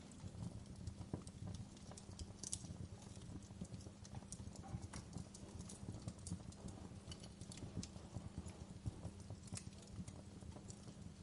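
Wood fire crackling: irregular sharp pops and ticks over a steady low rumble.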